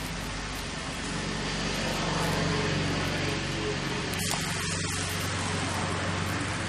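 A steady engine-like hum, a little louder two to three seconds in, over an even hiss.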